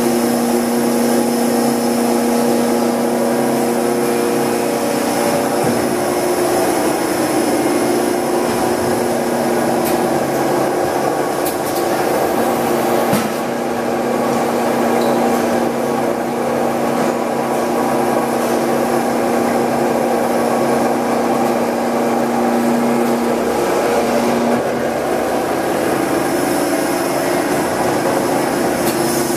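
Hydraulic injection molding machine running: a loud, steady mechanical hum carrying several steady tones, as of its hydraulic pump motor.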